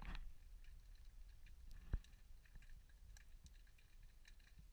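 Faint, muffled underwater ambience picked up by a camera in a waterproof housing: a low rumble with scattered soft ticks and one dull thump about two seconds in.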